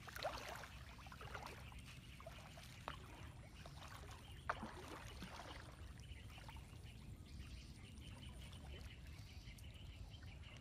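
Faint sloshing and a few small splashes of water as a person wades through a shallow flooded field and dips a hand into the water.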